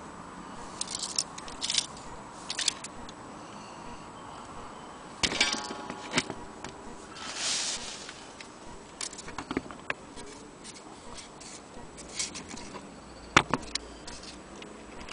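Small metal clicks, taps and scrapes as the brass movement of an antique German strike wall clock is handled by hand, with a short rattling run of rapid clicks about five seconds in and a sharp click near the end.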